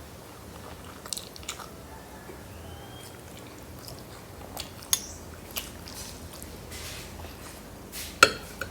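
A person chewing and biting into spaghetti and meatballs, with a few short sharp clicks scattered through, the loudest near the end.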